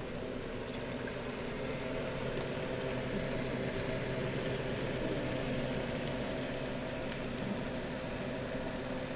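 Small classroom aquarium's filter pump running: water splashing and bubbling steadily at the surface over a constant low motor hum.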